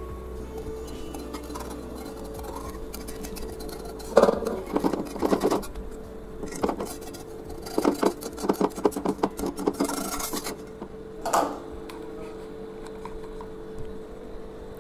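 A metal utensil scraping and clinking against an iron appam pan as a cooked appam is loosened and lifted out, in several bursts between about four and eleven seconds in, over a steady hum.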